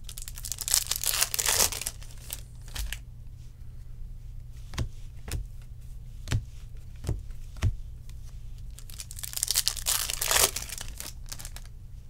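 Trading cards being flipped through by hand, rustling and sliding against each other in two spells, with five sharp clicks in between as single cards are snapped or set down.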